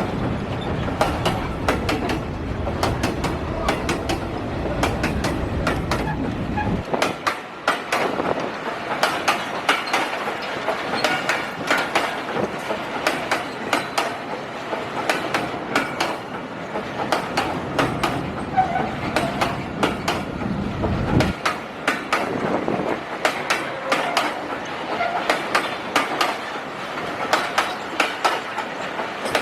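Train passing close by, its wheels clicking steadily and rapidly over the rail joints. A heavy low rumble underneath stops suddenly about seven seconds in.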